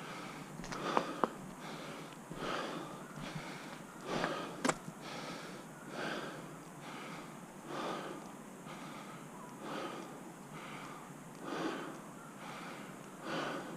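Mountain biker's heavy breathing, a loud breath about every second and a half to two seconds. A couple of sharp clicks, the sharpest about four and a half seconds in.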